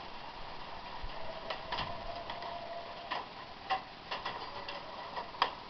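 Scattered, irregular sharp clicks and knocks, a dozen or so spread unevenly over a few seconds, the loudest near the end, over a steady background hiss.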